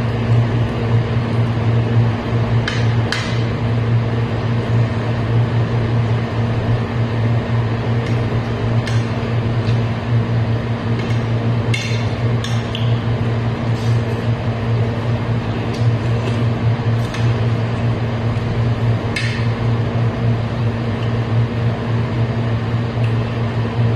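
Metal spoon and fork clinking and scraping against a dinner plate now and then, over a loud, steady low hum.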